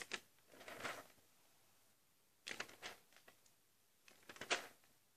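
Paper rustling as the pages of a toy catalogue are handled and turned, in three short bursts.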